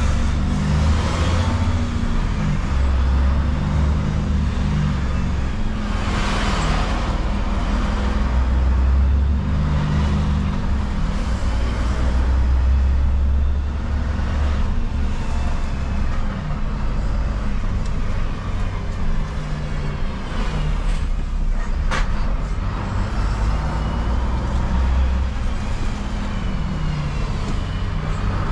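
Diesel engine of a refuse truck running, its low rumble swelling and easing every few seconds, with road noise around it. A single sharp click about three-quarters of the way through.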